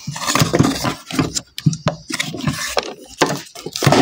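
Zelmer Orion vacuum cleaner casing being handled and turned over: a run of irregular knocks and clatters with scraping in between.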